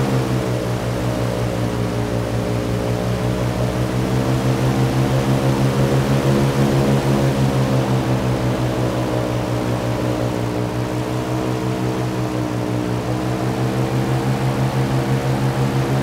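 Hovercraft engine and ducted propeller running steadily at speed, with an even, fast throb. The pitch sags slightly and climbs back twice.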